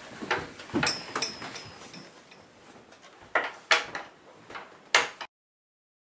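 Several sharp knocks and thumps with soft rustling between them, the loudest near the end. The sound then cuts off abruptly to dead silence about five seconds in.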